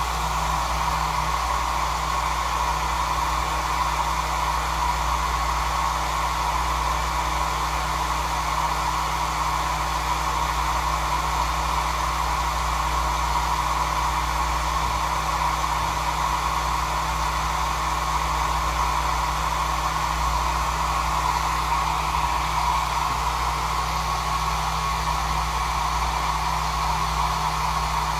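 Britania Travel 1200 W compact hair dryer running steadily, its nozzle held against the plastic underside of a computer mouse to heat it.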